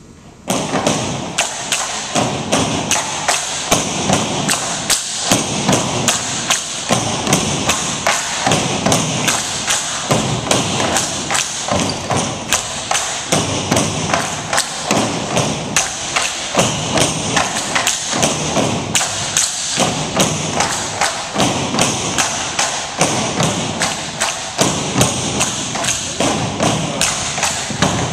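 Tinikling poles knocked against the gym floor and against each other in a steady, even rhythm, starting abruptly about half a second in.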